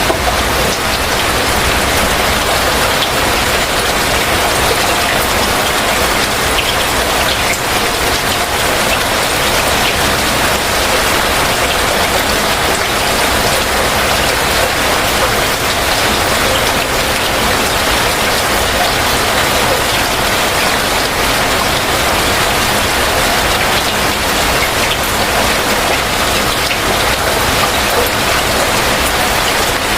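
Heavy rain falling steadily: a dense, even hiss of countless drops striking surfaces, with no letup.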